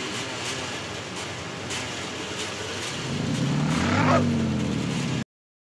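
City street traffic with motorcycles, scooters and cars running. About three seconds in, a motor engine grows louder and revs up and down. The sound cuts off suddenly near the end.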